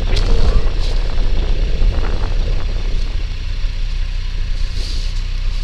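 A motor vehicle's engine idling with a steady low rumble, with faint rustling and handling noises over it in the first few seconds.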